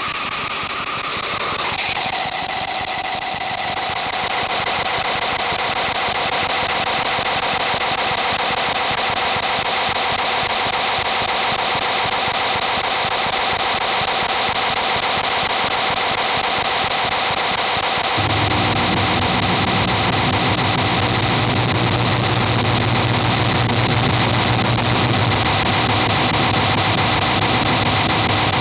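Dense, loud electronic noise from amplified everyday objects and circuit-bent electronics, with several steady high whistling tones held over it. A low drone joins about two-thirds of the way in.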